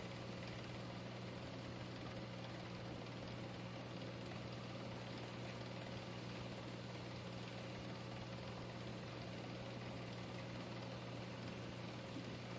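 Steady low hum of reef aquarium equipment, most likely its pumps, with a faint even hiss over it.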